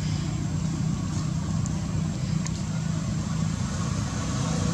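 Steady low rumble, with a few faint clicks.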